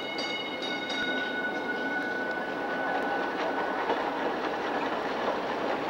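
Electric streetcar running along its track, wheels rolling on the rails, with a high ringing tone that starts with a few sharp clicks and fades away over the first three or four seconds.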